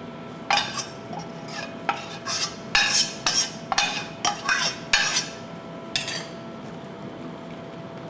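Stainless-steel saucepan scraped and knocked against a wire-mesh sieve as thick blended sauce is poured and scraped into it: a run of metallic scrapes and clinks lasting about five seconds, then quieter.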